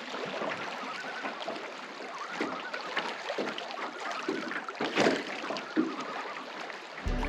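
Water splashing and lapping around a paddled canoe, in irregular surges. Acoustic guitar music comes in near the end.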